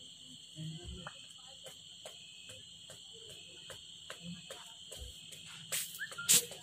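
Steady high-pitched trilling of crickets in the night, with a faint regular pulse. Near the end two sharp clicks or knocks stand out as the loudest sounds.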